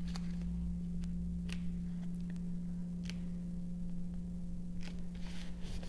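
Steady low electrical hum with a few faint, scattered taps and rustles of patterned paper being pressed down and handled on a small paper box.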